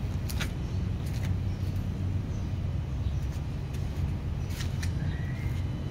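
Cats eating from plastic bowls: a few sharp clicks of chewing and of food and bowls being nudged, over a steady low rumble.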